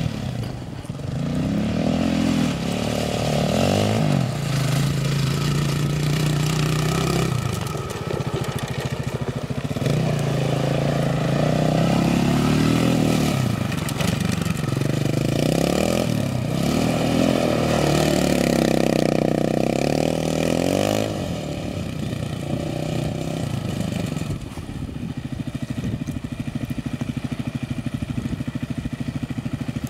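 Triton 450 SuperMoto quad's engine revving up and down again and again as it is throttled on and off through dirt turns. For the last several seconds it settles into a steadier, quieter drone.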